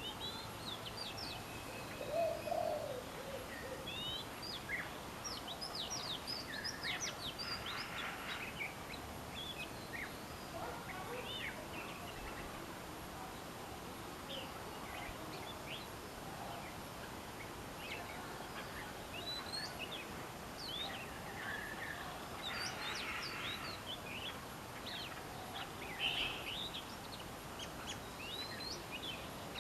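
Male oriental magpie-robin singing: a varied string of short, quick whistled notes that sweep up and down, coming in clusters. A lower call stands out about two seconds in.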